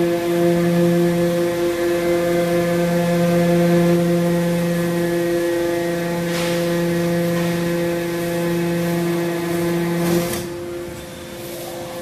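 Hydraulic scrap metal baler's power unit running with a steady, multi-note hum from its pump and electric motor. About six seconds in there is a single knock. About ten seconds in the lowest note stops and the hum gets quieter, a change in the hydraulic load.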